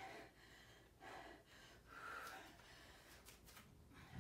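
Faint breathing of a woman exercising: a few quiet breaths about a second apart, close to near silence.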